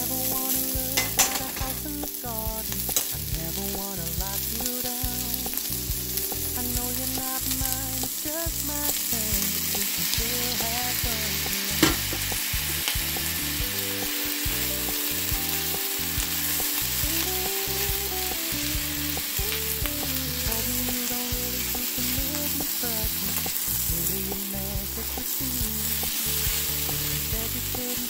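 Sliced onions and vegetables sizzling as they fry in a nonstick pan while a silicone spatula stirs them, with a few clicks of the spatula on the pan and one sharp knock about twelve seconds in. The sizzle grows brighter about nine seconds in, once chopped tomatoes are in the pan.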